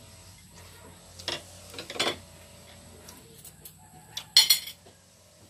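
A few short clinks and knocks of tableware, a utensil against a plate and a plastic food container, the loudest a quick clatter a little after four seconds in.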